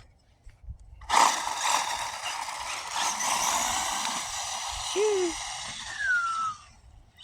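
Small brushed electric motor and gear train of a 1/18-scale RC car running with a high whine. It starts suddenly about a second in and fades out near the end.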